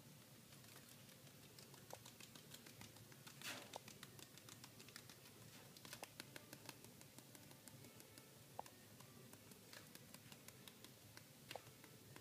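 Near silence: faint hiss with scattered light ticks and one brief rustle about three and a half seconds in.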